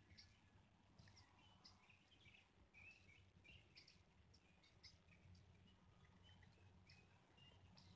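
Near silence with faint, scattered chirps of small songbirds, a few each second, over a faint low hum.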